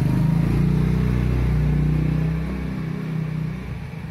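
A motor vehicle's engine running close by, a steady low hum that starts suddenly, eases off after about two seconds and fades out.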